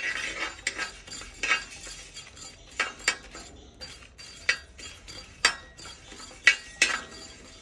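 A spoon stirring spices roasting in a pan (coriander seeds, urad dal, dried red chillies and black peppercorns), scraping and clinking against the pan about once or twice a second at an uneven pace.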